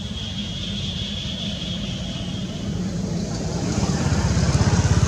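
A motor vehicle's engine running steadily, growing louder about four seconds in. A high steady tone sounds over it for the first half.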